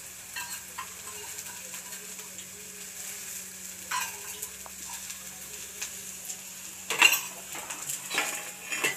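Sliced okra sizzling steadily in oil in a frying pan, with light clinks of a spoon on steel. About seven seconds in comes a loud metallic clatter of steel dishes, and a few more knocks follow near the end.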